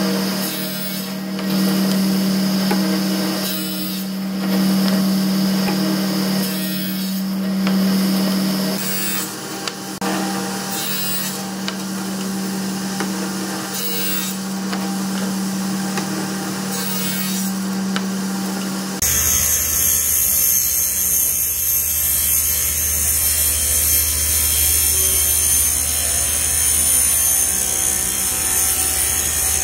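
Table saw running and ripping 18 mm birch plywood into strips, the cutting sound rising and falling over several passes. About two-thirds of the way in, the sound changes abruptly to a steadier low hum with a high whine as a wide, thin panel is fed across the saw.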